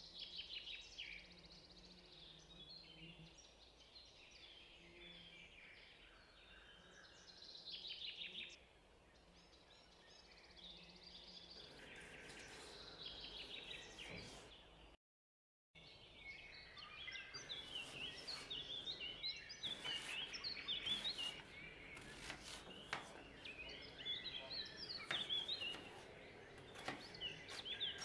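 A chef's knife knocks on a plastic cutting board in quick, uneven strokes, cutting raw beef and then potato. The strokes begin about halfway, after a brief silence. Faint high chirps sound in the background throughout.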